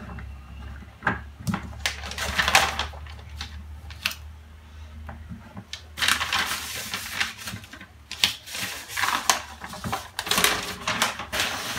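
Kraft-paper pattern pieces rustling and crinkling as they are handled and lifted, with scattered light clicks and taps.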